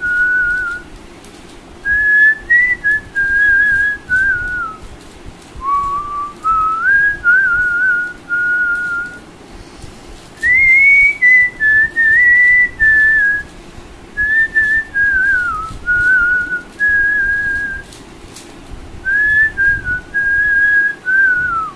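A man whistling a Hindi song melody: a single clear tone stepping up and down in phrases of a few seconds, with short breaks for breath between them.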